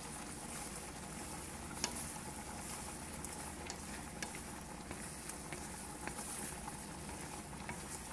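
Shrimp sizzling in butter in a frying pan, a steady hiss, with a few sharp clicks of a wooden spatula against the pan as they are stirred.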